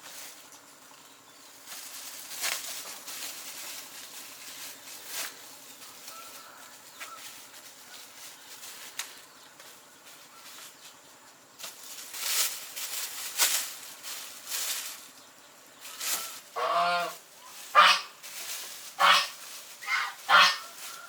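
Farm fowl giving about five short, harsh honking calls in the last few seconds, after a stretch of scattered rustling and scraping noises.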